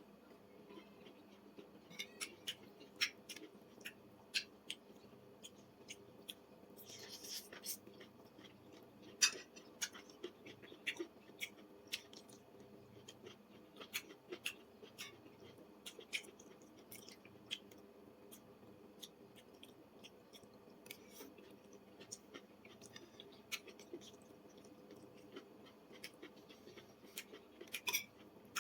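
Someone eating fried vegetables: irregular crisp crunches and small clicks of biting and chewing, with a denser crunch about seven seconds in.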